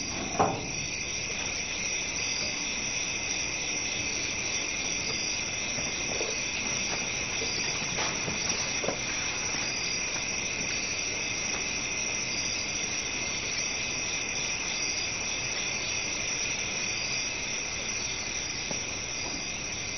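Crickets chirping steadily, a night ambience, with one short knock about half a second in and a couple of faint clicks later on.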